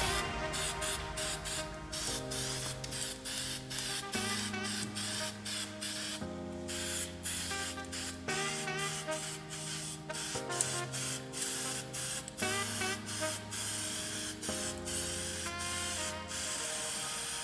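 Aerosol can of weld-through primer spraying in short, repeated hissing bursts, over background music whose chords change about every two seconds.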